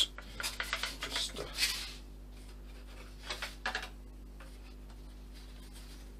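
Light wooden model-aircraft parts being handled and moved on a workbench: soft rubs and taps through the first two seconds and two more brief ones about three and a half seconds in, over a steady low mains hum.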